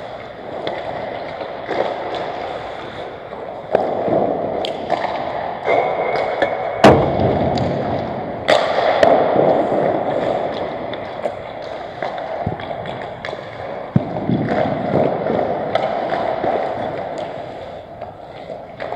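Ice hockey skates scraping and carving on the rink, with frequent sharp clacks of sticks and puck and a heavy bang about seven seconds in.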